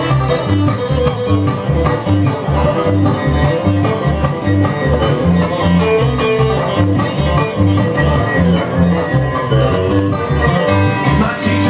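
Bluegrass band playing an instrumental break, with a fast banjo and guitar over bass notes on a steady beat.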